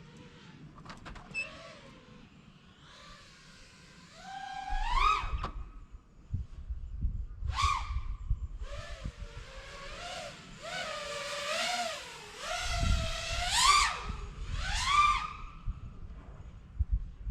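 FPV quadcopter (iFlight Nazgul Evoque F6D) motors and propellers whining, the pitch swooping up and down repeatedly as the throttle is punched and eased, with gusts of wind noise rumbling underneath.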